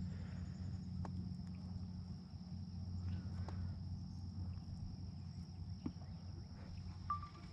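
Faint outdoor ambience: a steady high insect drone over a low steady hum, with a few faint clicks.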